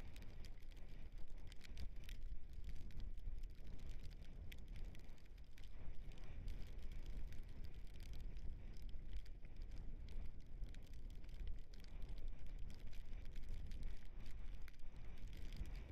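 Dog scooter rolling fast over a rough dirt trail: a steady low rumble from the tyres with frequent small rattles and clicks, and wind buffeting the microphone.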